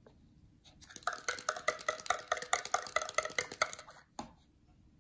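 A die rattling inside a clear cup as it is shaken hard, a quick run of clicks with a ringing, glassy ring, for about three seconds. Then a single knock as the cup is set down on the table.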